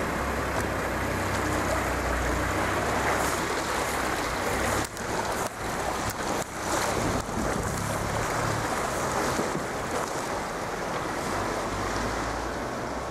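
Four-wheel-drive bushcamper driving through a flooded sandy track: the engine runs low under a steady rush of water splashing and sloshing against the vehicle. The sound drops out briefly a few times about five to seven seconds in.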